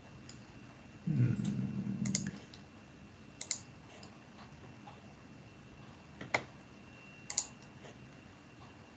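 Several separate computer mouse clicks a second or more apart, with a brief low rumble about a second in and a faint steady high tone underneath.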